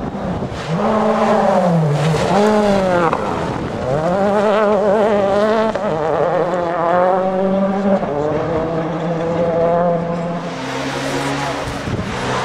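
Rally car engine revving hard, its pitch swinging up and down sharply twice, then holding steadier notes that step down in pitch several times in the second half.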